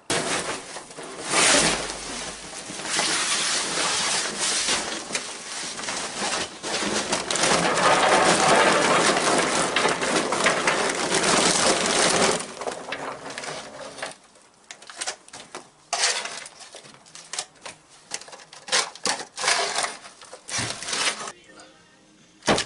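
Handling of an offset barbecue smoker: about twelve seconds of loud rustling and scraping as it is uncovered and got going, then a run of scattered clicks and knocks at the firebox.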